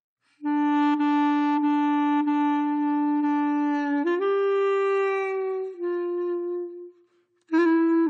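Background music: a slow solo wind-instrument melody of long held notes. It starts about half a second in, steps up to a higher note midway, falls back and fades out near the end before the next phrase begins.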